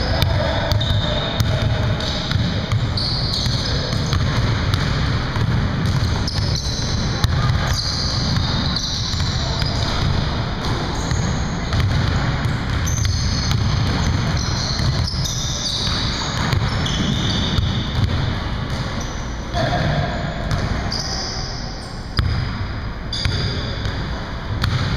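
Basketballs bouncing on a hardwood gym floor during a pickup game, many short knocks with echo from the hall, mixed with players' voices.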